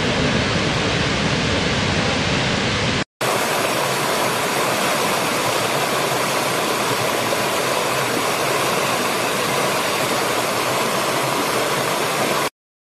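A large waterfall pouring, a deep, full rush of water, for about three seconds. After a brief cut it gives way to a small rocky stream splashing over stones, a lighter, hissier rush, which stops suddenly shortly before the end.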